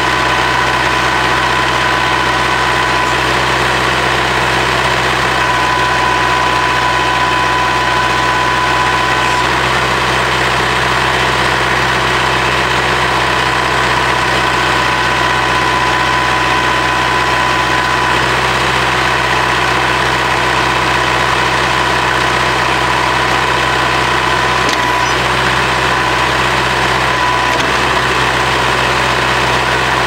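Kubota B7800 tractor's three-cylinder diesel engine running at a steady speed while the backhoe's hydraulics are worked. A few steady whining tones sit above the engine note.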